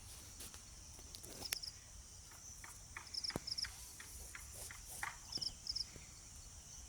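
Insects chirping in a steady high-pitched chorus, with short chirps repeated in groups of two or three, and scattered faint clicks and knocks.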